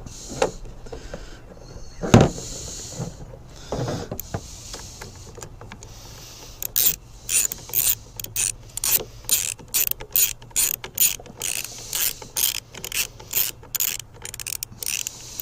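A few knocks of tools and parts being handled, then, from about halfway through, a hand ratchet clicking in a steady rhythm of about two to three clicks a second as a round-head bolt is run in on a chainsaw being reassembled.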